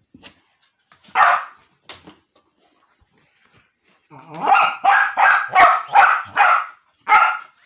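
Dog barking: a single bark about a second in, then a quick run of about six barks from about four seconds in, and one more near the end.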